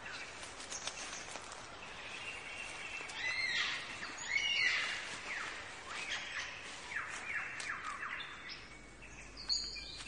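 Forest birds singing and calling: a mix of chirps and whistles, loudest in a burst of arching calls around four to five seconds in, followed by a run of quick falling whistled notes.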